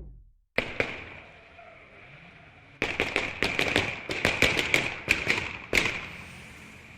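Gunshot sound effect: two sharp shots about half a second in, then a rapid, irregular string of shots from about three seconds in until near six seconds, over a faint steady high-pitched ringing tone.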